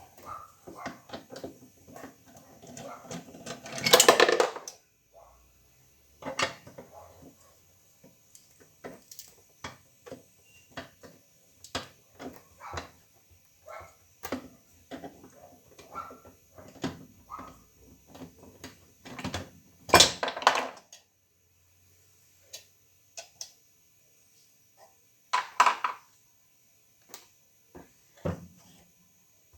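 Irregular clicks, knocks and clatter of tools and parts being handled during washing-machine disassembly, with a few louder, longer bursts of clatter about four seconds in, around twenty seconds and near twenty-six seconds.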